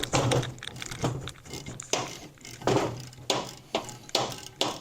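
About half a dozen irregularly spaced metallic knocks and clanks as hand tools work a bolt against the crankcase of a Harley-Davidson Ironhead Sportster to draw out an oil fitting.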